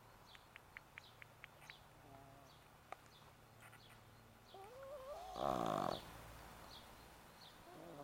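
Boston terrier snoring: faint, whistling breaths, then about five seconds in a nasal whistle rises in pitch and runs into a loud, half-second snore.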